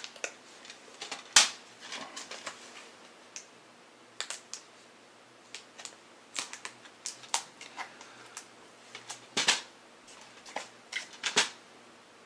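Plastic DVD case being forced open past its sealing sticker: irregular sharp plastic clicks, snaps and crackles, the loudest snap a little over a second in.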